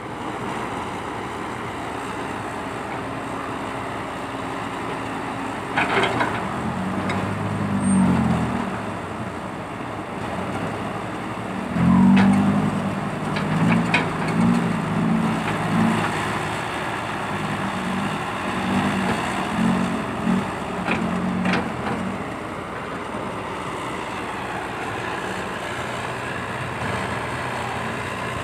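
Diesel engine of a Komatsu PC120-5 hydraulic excavator running steadily, labouring in repeated surges under hydraulic load as it works. A few sharp clanks come through during the surges.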